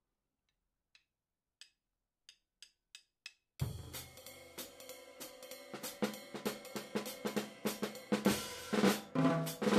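Drumsticks clicked together a few times as a count-off, quickening into an even beat, then a jazz drum kit comes in at a fast tempo, snare strokes over bass drum and cymbals, growing louder near the end.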